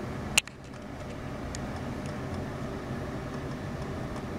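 A single sharp click about half a second in, as a multimeter's metal probe tip meets a solder trace in a 3D-printed PLA block. After it comes a steady low background hum with a couple of faint ticks.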